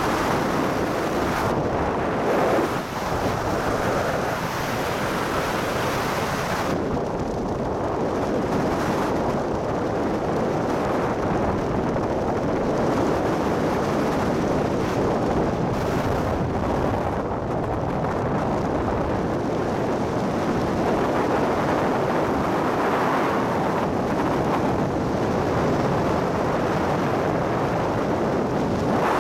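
Airflow rushing over a helmet-mounted camera's microphone during a descent under an open parachute canopy, a steady rushing hiss. The hiss is brighter for about the first seven seconds, then duller.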